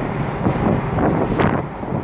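Road traffic passing close by, with wind buffeting the microphone; no horn sounds.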